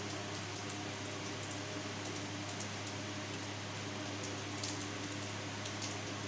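Steady background noise: a constant low hum under an even hiss, with faint scattered ticks.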